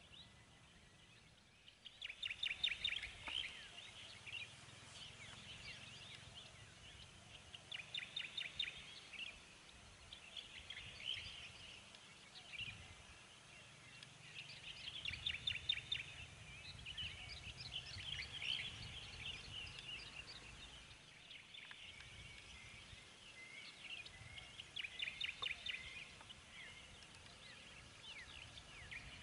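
Wild birds singing in bouts of quick, trilled phrases of rapidly repeated high notes, starting about two seconds in and recurring every second or two, over a faint low background hum.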